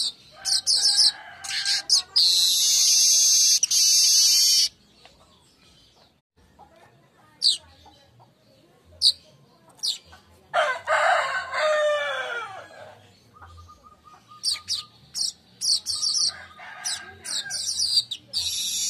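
Weaver birds (manyar) singing: bursts of rapid high chattering notes and long loud buzzy wheezes, the song used as a lure recording to call other manyar. A lower, falling call sounds once about ten seconds in.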